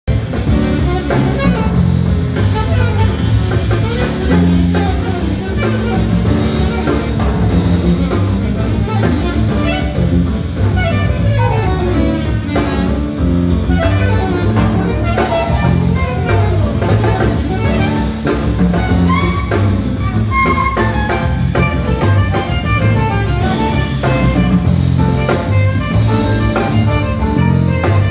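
A live jazz quartet playing: saxophone carrying the melody over a walking electric bass guitar, a drum kit and piano.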